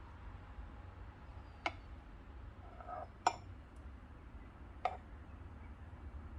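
Three sharp clicks, evenly spaced about a second and a half apart, over a low steady hum.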